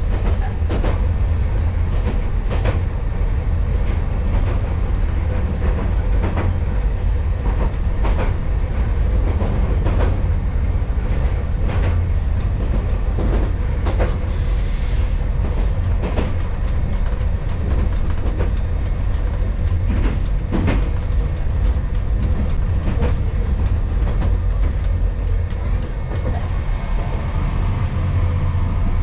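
Hankai Tramway streetcar running along its track, heard from inside the car: a steady low rumble with irregular clicks as the wheels pass over rail joints, and a short hiss about halfway through.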